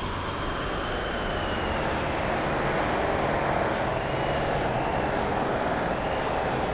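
Steady outdoor background noise with a low rumble and no clear single source. Faint high gliding tones come and go about three times.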